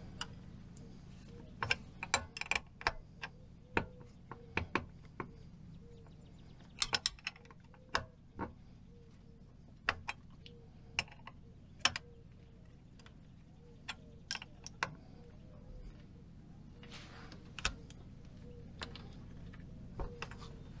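Irregular metallic clicks and taps of hand tools and fittings being handled while a part and hoses are fitted to a Caterpillar truck engine's air compressor, over a faint steady hum.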